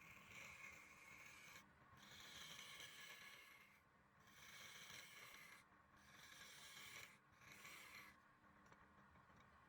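Faint scraping or rubbing strokes, five in a row, each lasting one to two seconds with short breaks between them.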